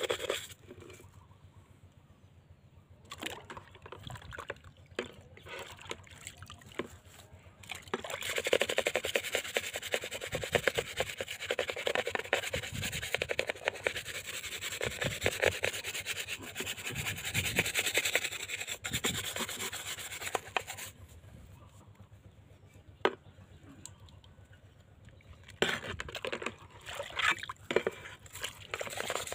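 Hand-held bristle brush scrubbing a soapy metal motorcycle pedal part over a bucket of water, in quick back-and-forth strokes with wet rubbing and dripping. The scrubbing is quieter at the start, fills the middle, pauses about two-thirds through, then picks up again near the end.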